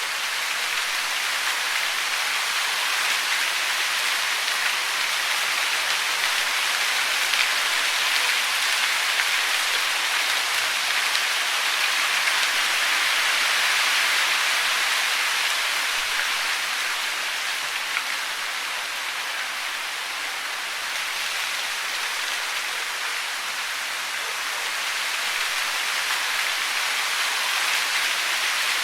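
Steady hiss of falling water, the sound of rain or a cascade, swelling and easing gently over several seconds.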